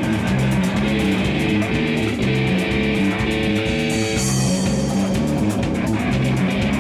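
Rock music with guitar, bass guitar and drum kit, playing steadily with a regular beat.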